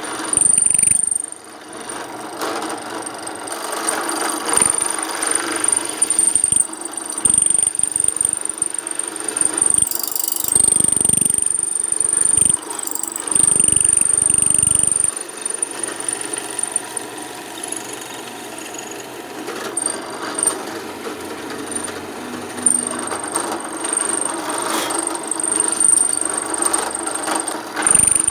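Electric drill fitted with a square-hole mortising chisel adapter, boring into peroba wood. The motor runs continuously with a steady high whine, its loudness rising and falling as the cutter is worked into the wood.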